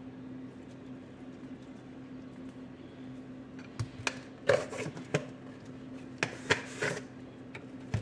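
Seasoning containers being handled and shaken over a cooking pot: from about four seconds in, a string of sharp clicks, taps and short rattles, over a steady low hum.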